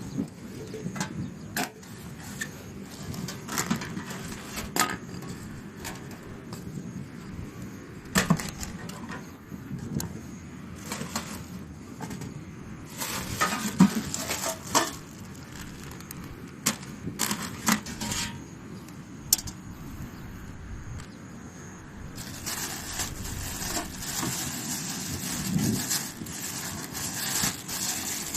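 Camping gear being handled: scattered clicks and knocks of small hard objects. A steady hiss sets in about two-thirds of the way through.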